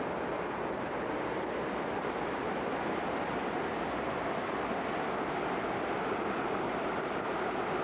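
Steady rushing of the Black Fork River running high and fast in flood, an even roar of water with no distinct splashes.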